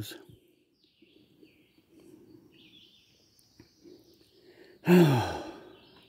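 A man's voiced sigh about five seconds in, sliding down in pitch and fading within about half a second. Before it there is only a faint high-pitched hiss in the background.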